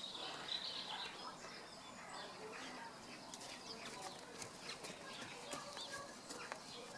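Faint outdoor birdsong: many short chirps and quick little pitch glides from several birds, with scattered light clicks.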